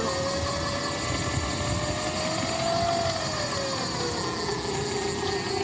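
A trolling boat's motor running steadily: a continuous hum with a whining tone that slides lower about four seconds in, over wind and water noise.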